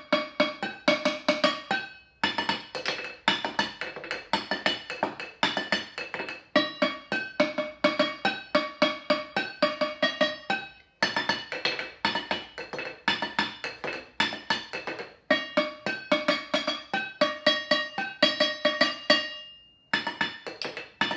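Four upturned stainless steel saucepans struck in a quick, steady rhythm with a wooden spoon and a wooden spatula, each hit ringing with a short metallic pitched tone. The playing breaks off briefly a few times.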